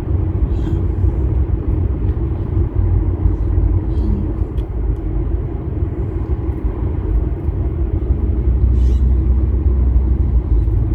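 Steady low rumble of road and engine noise heard from inside a moving car's cabin on a bumpy road, with a few faint clicks and rattles.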